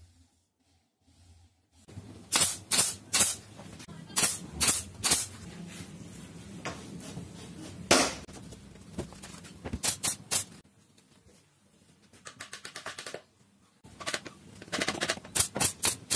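Pneumatic nail gun firing nails into plywood: a series of sharp shots, several in quick succession, with a pause of a few seconds before a final rapid run.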